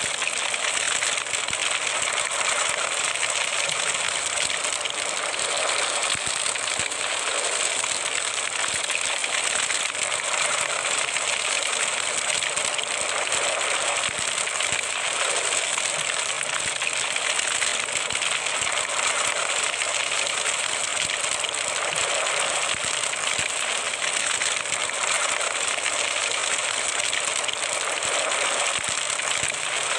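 Crackling fire sound effect: a steady hiss dotted with faint small crackles.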